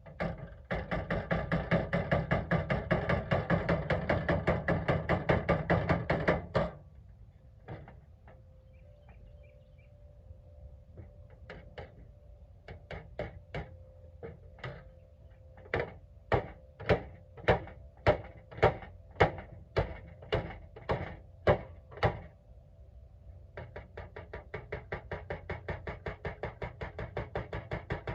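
A Craftsman toolbox's bent sheet-steel being hammered straight: a quick run of many light taps for about six seconds, then a string of separate, louder single blows about two a second, then another quick run of taps near the end.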